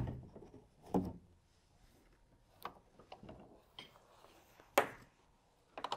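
Scattered clicks and light knocks of a bungee cord and its hook being handled against the H-Crate frame, with a soft knock about a second in and a sharper click near the end.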